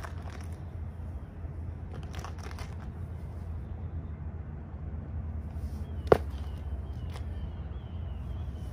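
Steady low outdoor rumble with a few faint taps and one sharp, loud click about six seconds in. Faint, high, repeated chirps begin shortly before it.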